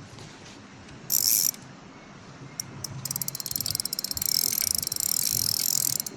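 Fishing reel being cranked to wind in line, its mechanism clicking rapidly and evenly from about three seconds in, after a short burst about a second in.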